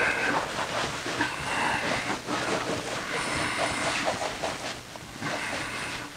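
Eraser wiping marker writing off a whiteboard: a dry rubbing, scraping noise in repeated back-and-forth strokes.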